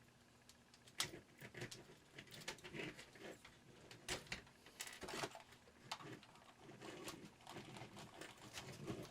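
Irregular plastic clicks and rustling from handling a miniature Christmas light set and a LightKeeper Pro repair tool, whose trigger clicks send a pulse through the strand to find the burned-out bulb. The sharpest click comes about a second in, with more scattered through the middle.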